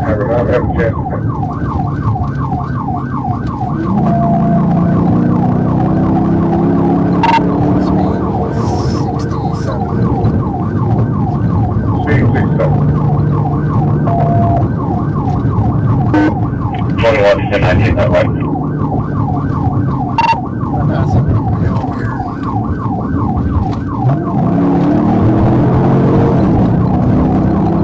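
Police car siren on a fast yelp, its pitch sweeping rapidly up and down over and over, heard from inside the pursuing patrol car. Under it runs the car's engine, rising in pitch as it accelerates about four seconds in and again near the end, with a few sharp clicks.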